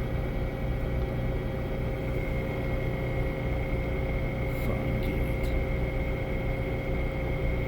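12,000 BTU portable air conditioner running: a steady low hum with a thin steady high whine over it, and a few faint clicks about halfway through.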